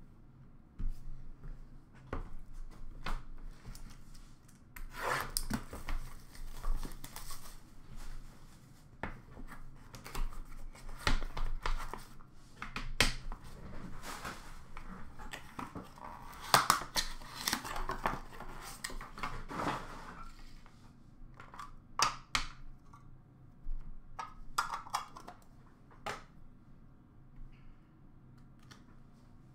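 Hands unwrapping and opening a box of hockey cards: rustling and tearing of wrapping and cardboard in several bursts, with sharp clicks and taps in between.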